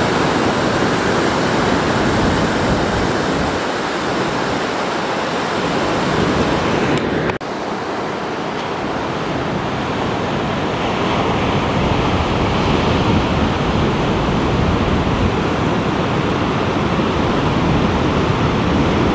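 Ocean surf: waves breaking and whitewater rushing in a steady, loud wash of noise, with some wind rumbling on the microphone. The sound cuts abruptly about seven seconds in, then carries on.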